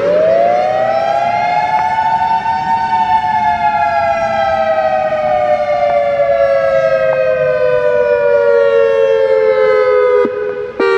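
EOWS 612 outdoor warning siren sounding a two-note chord with a harsh, many-overtoned wail. It winds up quickly to its peak about two to three seconds in, then slowly winds down in pitch, briefly cutting out near the end.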